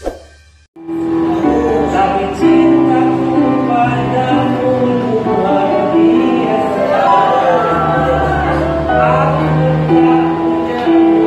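A song playing: singing with long held notes over instrumental backing, starting about a second in after a brief gap.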